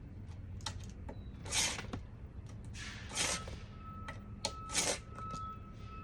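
A blade drawn in short, evenly spaced scraping strokes along a thick plexiglass sheet, scoring it pass by pass, about one stroke every second and a half.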